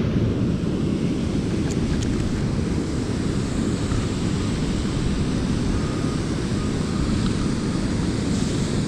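Steady low rushing noise of wind on the microphone, mixed with flowing river water.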